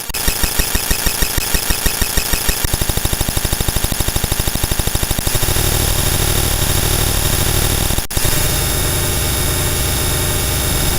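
US Emergency Alert System alarm audio digitally sped up far beyond normal speed, its tones and data bursts blurred into rapid pulsing that turns into a harsh, steady buzz about five seconds in. It cuts out for an instant near eight seconds and carries on.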